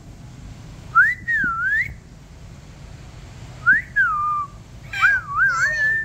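Three short whistles: about a second in, a quick rising whistle that dips and climbs again; near four seconds, a rising whistle that falls away; and about five seconds in, a wavering whistle held to the end.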